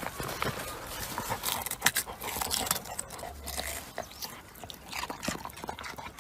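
A dog biting and mouthing at a white root vegetable in loose soil, with irregular crunching and scraping sounds.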